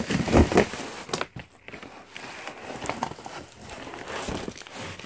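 Packaging rustling and crinkling as parts are pulled out of a cardboard box, with a heavier knock about half a second in.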